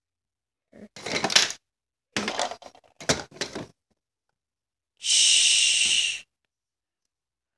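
Toy dolls and plastic dollhouse pieces being handled, with a few short rustles and knocks, then a steady hiss lasting just over a second near the end.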